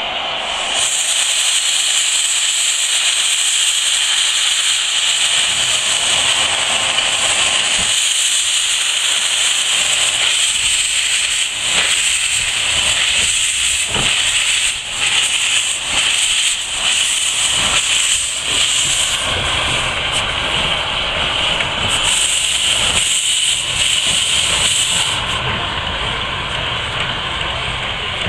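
Narrow-gauge steam tank locomotive No. 403 hissing steadily as steam blows from its cylinder drain cocks while it moves slowly. A run of uneven exhaust beats comes through in the middle, and a low rumble joins in the second half before the hiss eases near the end.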